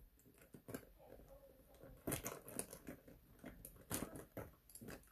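Faint clicks and rustles of makeup items being handled, with a few louder clicks about two seconds in and near four seconds.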